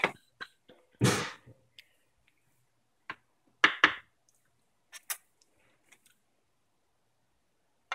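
A few scattered brief clicks and knocks from handling a plate and camera, with a short rushing noise about a second in and quiet between.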